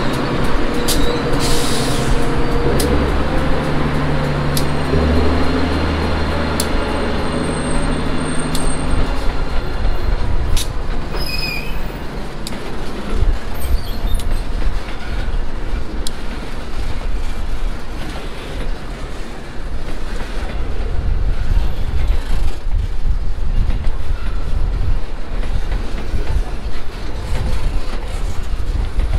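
Continuous welded rail work train moving on subway track. A steady motor hum runs for the first several seconds, then wheels rumble with scattered metallic clanks and brief high squeals, and the rumble builds again near the end.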